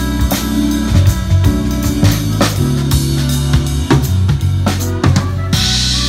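Live band playing, with the drum kit up front: kick drum and snare strokes over a sustained bass line and held chords. A cymbal crash rings out about five and a half seconds in.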